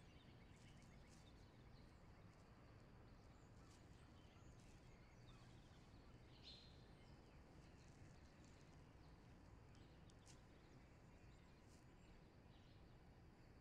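Near silence: faint steady room tone with a few faint, short bird chirps, one about six and a half seconds in.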